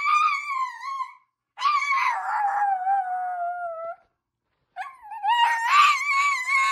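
A pet howling in long, drawn-out, wavering high notes. There are three howls with short breaks between them, and the middle one slides down in pitch.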